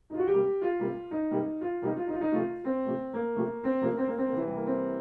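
Intro music: a piano playing a short melody of separate notes, ending on a held chord that fades out.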